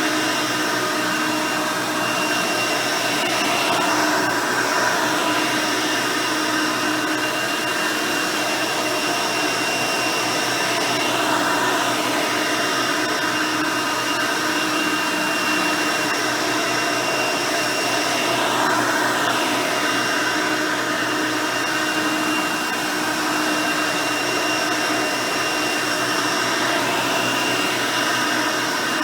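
Hoover Elite 350 upright vacuum cleaner running steadily, its original 5-amp motor and nine-blade fan giving a constant high whine, with slow swells every several seconds as it is worked over carpet.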